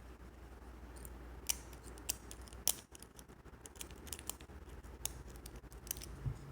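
Irregular small metallic clicks and light scraping from a lock pick working loose pins in a partly disassembled Mul-T-Lock Junior dimple lock, with a handful of sharper clicks.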